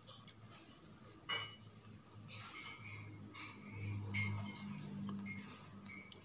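Metal multimeter probe tips tapping and scraping against the screw terminals of a 12 V 4 Ah battery: a scatter of small, sharp clicks and clinks.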